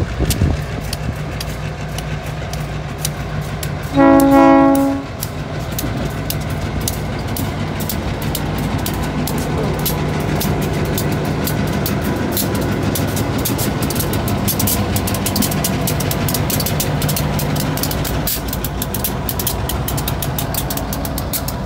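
Diesel freight locomotives passing close by, engines running with a steady drone. About four seconds in there is one short blast of the horn, and the clicking of wheels over the rail joints grows more frequent as the train rolls past.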